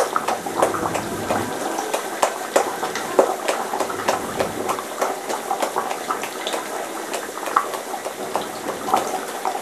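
A rice flour and curd roti deep-frying in hot oil in a metal kadai, the oil bubbling and crackling with many small irregular pops.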